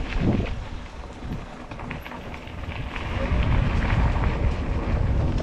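Wind buffeting the microphone over the rattle and knocks of an electric mountain bike riding a rough dirt trail.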